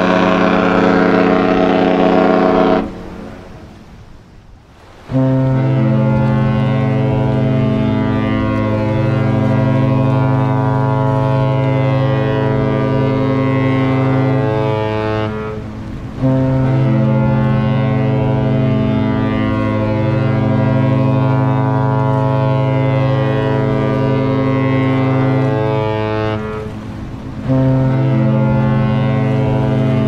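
A cruise ship's horn blast ends about three seconds in. Then another ship's deeper horn sounds three long blasts, each about ten seconds, with short breaks between them.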